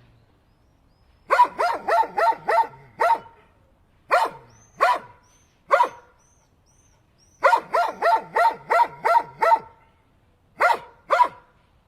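A dog barking in groups of short, sharp barks: a quick run of about five, a few single barks, another rapid run of about eight, then two more near the end.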